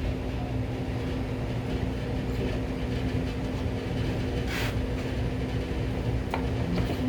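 Steady low hum of a room machine such as an air conditioner or fan. A brief scrape comes about four and a half seconds in, and a couple of light clicks near the end.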